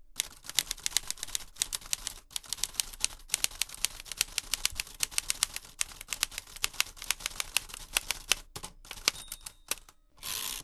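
Typewriter keys clacking in rapid runs, several strikes a second with short pauses, as a typing sound effect. A brief swish comes near the end.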